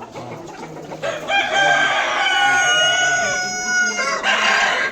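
Rooster crowing once: a long drawn-out call starting about a second in, with chickens clucking in the background.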